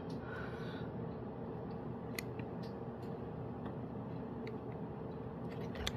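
Fluorescent light fitting's ballast humming steadily and low, with a few faint ticks in the second half.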